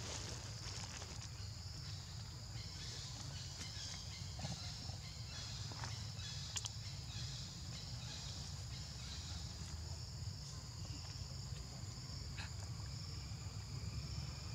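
Steady chorus of insects, a high buzz that pulses evenly, over a low steady rumble, with a few faint clicks.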